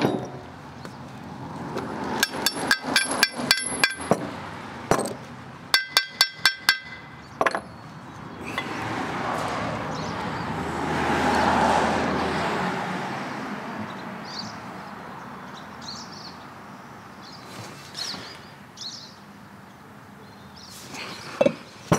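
Metal parts of an Evinrude/Johnson 9.9/15 hp outboard lower unit (clutch dog, gears, shaft pieces) clinking and ringing as they are handled, in a quick run of sharp clinks a couple of seconds in and a shorter run about six seconds in. After that, a broad rushing noise swells for several seconds and fades.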